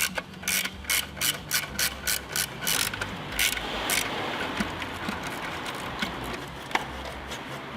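Ratchet wrench clicking in quick repeated strokes for about four seconds, then stopping: fasteners being undone to take off a motorcycle's exhaust silencer.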